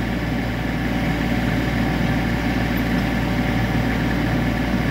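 Kubota U25 mini excavator's diesel engine running steadily, its hydraulics powering a torque drive head that screws a steel helical pier shaft into the ground.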